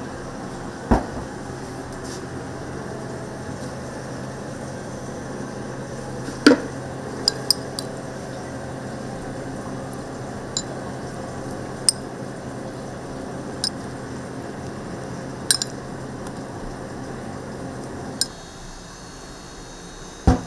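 Scattered clinks and knocks of cooking utensils and dishes, about nine in all, over a steady machine hum that cuts off near the end.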